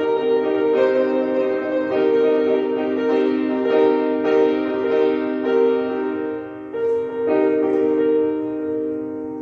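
Solo piano music: notes and chords struck in a steady pulse, getting quieter toward the end.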